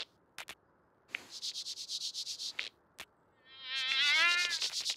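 Cartoon bee character's buzzy crying sounds: a high pulsed buzz lasting about a second and a half, then a longer wavering whine in the last second and a half, with a few short clicks between. The bee is sobbing because its wing is torn and it can no longer fly.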